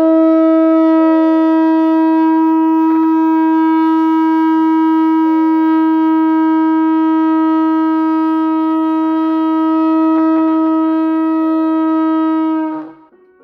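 One long horn blast held on a single steady note, cutting off sharply near the end.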